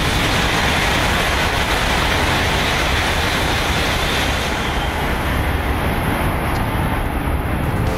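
E6 Series Shinkansen, coupled with an E5 set, passing at high speed: a loud, steady rushing noise, its hiss thinning somewhat in the last few seconds as the train goes by.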